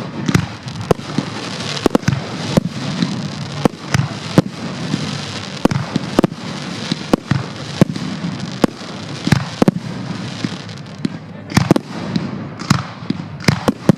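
Aerial fireworks display: shells bursting in an irregular string of sharp bangs, close to two a second, over a continuous hiss and rumble.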